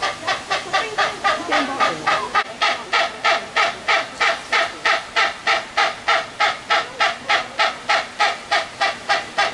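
Hornbill calling: a fast, even series of loud calls, about four a second, kept up without a break.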